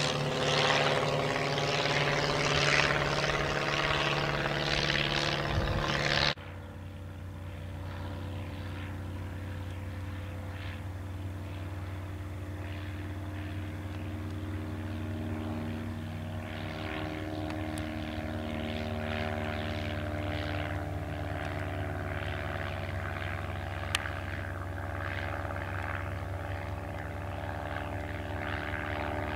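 Walter Mikron 60 hp four-cylinder inverted inline engine and propeller of a Bücker Bü 180 Student droning steadily in flight overhead. About six seconds in the sound drops abruptly to a quieter drone, whose pitch sags slowly past the middle, and a single sharp click comes near the end.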